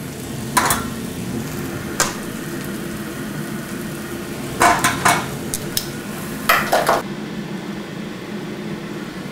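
Metal tongs clinking against a stainless stockpot and a broiler pan as ears of boiled corn are lifted out and set down: about six short sharp clinks, over a steady low hum and hiss.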